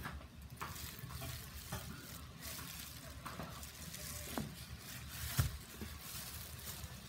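Clear plastic wrapping and a woven plastic sack crinkling and rustling as a metal valve body is handled. There are scattered light clicks, and a louder thump about three quarters of the way through as the valve is set down.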